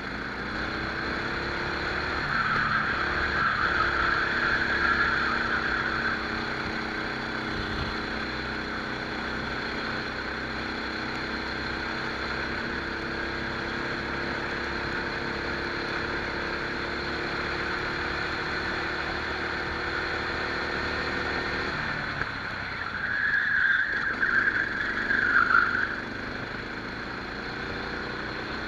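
Rental kart engine heard onboard, held at steady throttle with its pitch climbing slowly for about twenty seconds, then lifting off suddenly about 22 seconds in. A high squeal comes twice, early on and again just after the lift-off, typical of the tyres scrubbing through corners.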